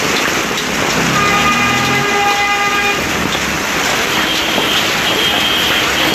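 Hail falling hard on the road and on parked cars: a loud, dense hiss of impacts. A vehicle horn sounds for about two seconds starting a second in, and a fainter horn tone follows later.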